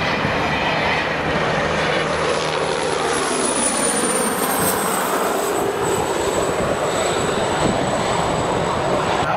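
A Boeing Stearman biplane's radial engine and a Piper Super Cub's piston engine running together at full takeoff power as the two climb away, a steady propeller drone.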